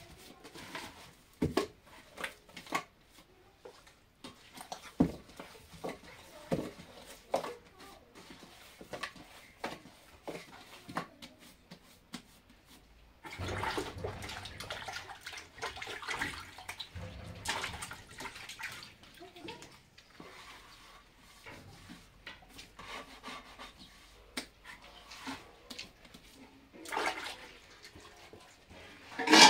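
Water running for several seconds in the middle, with scattered knocks and clatter of objects being handled before and after it.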